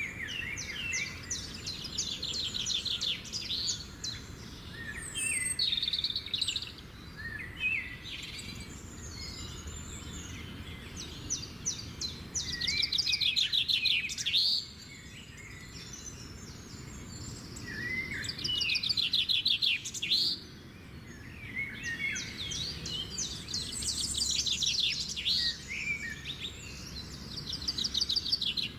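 Small songbirds singing: fast trilled phrases of rapidly repeated high notes, each a second or more long, one after another every few seconds and sometimes overlapping.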